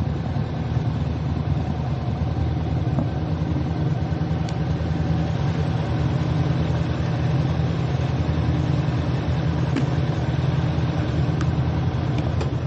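Motorcycle engine running steadily at low revs while the bike is being manoeuvred slowly.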